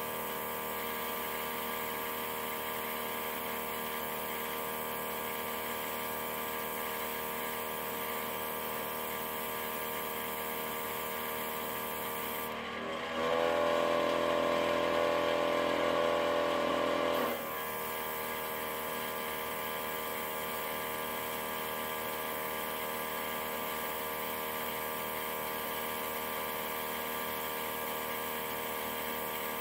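Small airbrush compressor from a budget nail-salon airbrush kit running with a steady motor hum while paint is sprayed. About halfway through, its sound grows louder and changes for around four seconds, then settles back to the same hum.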